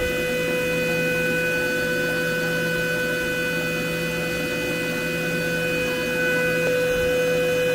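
Tormach CNC mill's spindle running with a steady whine in several pitches while it machines a small plastic block under flood coolant. It grows a little louder about six seconds in.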